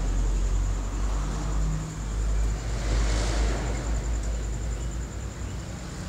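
A low rumble with a faint, steady, high-pitched whine above it; no clear bird calls stand out.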